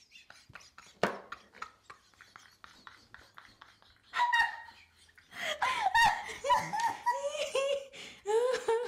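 Two women laughing hard. Soft clicks and a sharp tap about a second in come first, then loud, high-pitched bursts of laughter break out about four seconds in and keep going.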